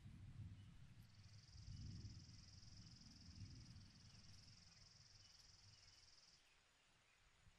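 Near silence: a faint low rumble, with a faint, steady, high-pitched trill that starts about a second in and stops near the end.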